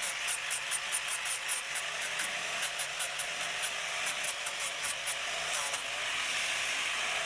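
Hand-held power tool cutting detail into a pine log, with rapid ticking about five times a second that gives way to an even steady whine about six seconds in.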